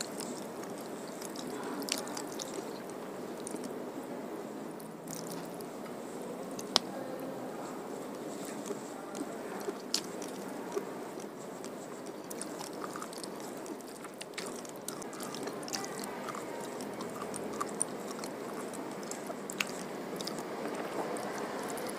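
Close-miked chewing and wet mouth sounds of someone eating rice, fish curry and spinach with her hand, with a few sharp clicks scattered through.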